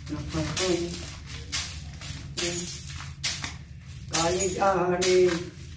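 A voice singing a devotional song to Kali, with repeated jingling, clinking strokes about every half second keeping time beneath it.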